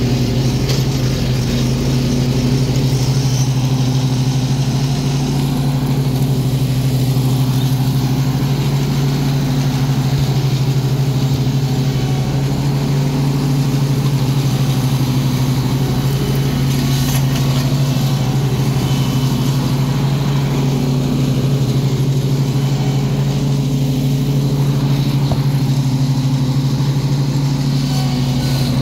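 Engine of a stand-on zero-turn lawn mower running steadily while mowing, a constant low drone.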